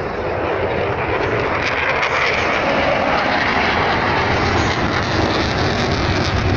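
Eurofighter Typhoon fighter jet flying past, the roar of its twin jet engines building over the first couple of seconds and then staying loud.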